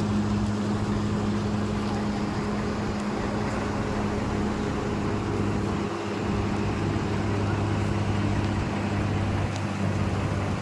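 An engine running steadily with a low, even hum over a constant rushing noise.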